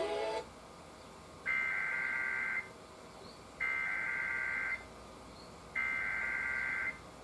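EAS/NOAA Weather Radio SAME header data bursts: three raspy digital two-tone bursts of about a second each, about a second apart, the coded header that precedes a weather alert.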